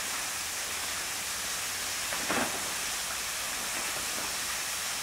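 Steady, even rush of falling water, with a brief faint pitched sound about halfway through.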